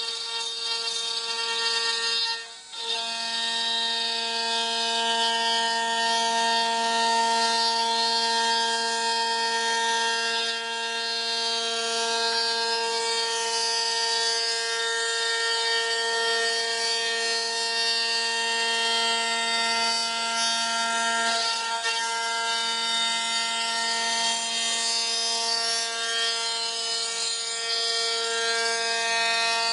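CNC router spindle running with a steady whine as its end mill cuts a wooden board. The sound drops out briefly about two and a half seconds in.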